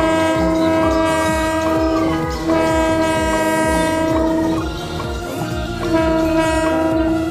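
A train-style horn sounds in three long, steady blasts: the first stops about two seconds in, the second runs from about two and a half to four and a half seconds, and the third starts near six seconds. A steady low pulsing runs underneath.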